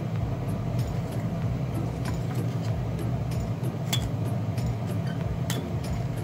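Screwdriver tip clicking and scraping against the plastic housing and circuit board of a skillet heat controller, with a sharp click about four seconds in and another about a second and a half later, over a steady low hum.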